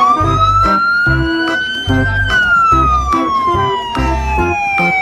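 Ambulance siren wailing: a single tone swoops up sharply, climbs slowly for about two seconds, then falls slowly for about three, starting to swoop up again at the very end. Background music with a steady beat plays underneath.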